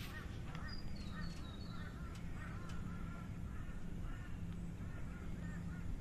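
Birds calling in a busy chorus of short, repeated honking notes, with a few high thin whistles early on, over a steady low hum.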